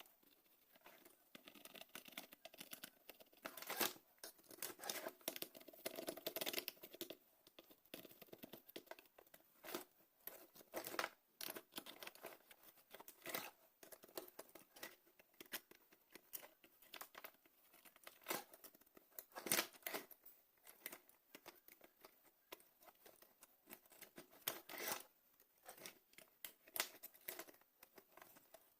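Irregular sharp clicks, snips and short scratching of hand tools working on a battery charger's circuit board as burnt components are pulled off it.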